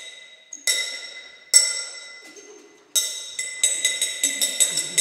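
A bright, bell-like chime struck over and over at the same pitch, each strike ringing on. The first strikes come about a second apart; from about three seconds in they come faster, about four a second.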